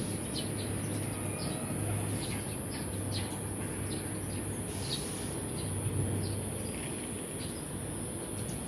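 Wild birds chirping: many short, quick, high chirps, each dropping in pitch, scattered irregularly over a steady high hiss.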